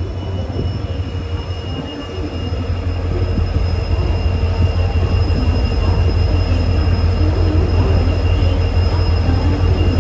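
WDG-4 diesel locomotive's EMD two-stroke engine running under load as it pulls away: a deep steady hum with a high steady whine over it, growing louder about three seconds in.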